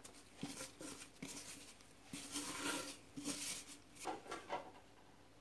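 Gloved hand scraping sticky scone dough out of a mixing bowl onto a floured worktop: a few soft knocks of the bowl and dough on the counter among irregular scraping and rustling, busiest in the middle.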